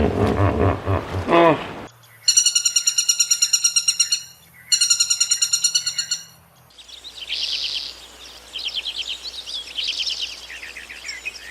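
Bird calls: two long, rapid trills of about two seconds each, then many small birds chirping together. Before them, for the first two seconds, another animal call.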